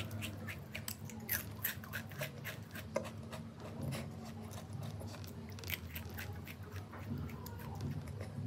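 A person biting and chewing Pringles potato crisps: a steady run of dry, crackly crunches.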